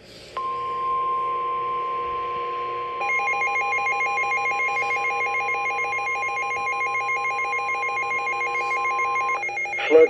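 Midland WR300 weather radio sounding the NOAA Weather Radio 1050 Hz alert tone, a single steady tone that signals an incoming warning broadcast. About three seconds in, a rapidly pulsing two-pitch alarm beep joins it; both stop just before the end, when the broadcast voice starts.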